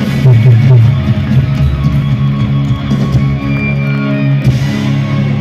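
Live rock band playing loud through a stadium sound system, with electric guitar to the fore.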